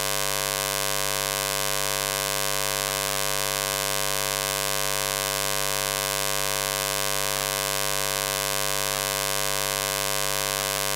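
Heavy, steady electrical buzz with hiss on the recording: a constant hum of many even tones that does not change, noise laid over the discourse audio.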